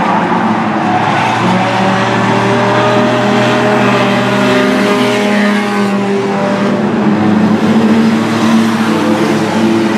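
Several compact stock race cars' engines running at racing speed together, a steady, loud engine drone. Pitches overlap and drift up and down as cars pass, with one pitch sliding noticeably about halfway through.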